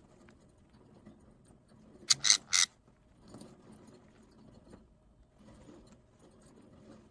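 Parrot giving three short, harsh squawks in quick succession about two seconds in, over faint scratching and rustling.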